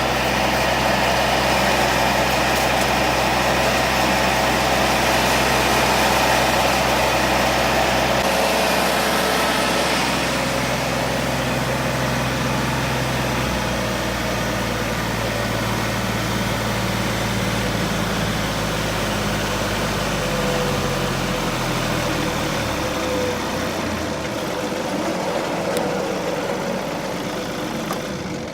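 John Deere 2032R compact tractor's diesel engine running steady under a Frontier WC1103 PTO-driven chipper shredder, with the whir of the chipper over it. The engine note shifts a few times, and the sound fades out at the end.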